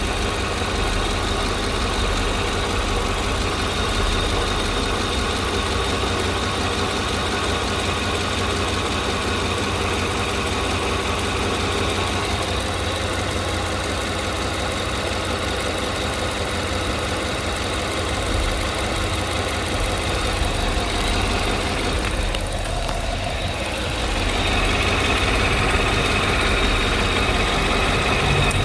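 Car engine idling steadily with its vacuum pump removed and the pump's holes plugged; the owner blames the old pump for a noise that sounded like bad lifters. It gets a little louder near the end.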